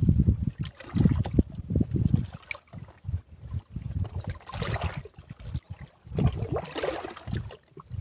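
Small waves lapping and sloshing against rocks at the water's edge, with wind buffeting the microphone in uneven low rumbling gusts.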